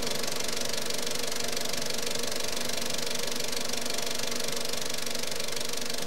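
Film projector running with a steady mechanical clatter.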